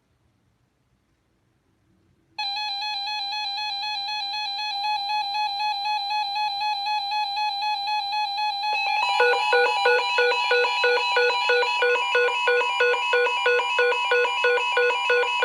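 Electronic alert tones on NOAA Weather Radio, announcing a new weather alert. After about two seconds of near silence a steady buzzy tone starts; around nine seconds in it gets louder and becomes a rapid pulsing beep, about two beeps a second, over a steady tone.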